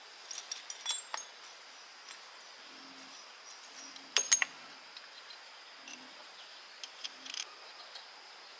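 Scattered light metallic clinks and taps of parts or tools being handled, the loudest a quick double clink about halfway through, over a faint steady high-pitched tone.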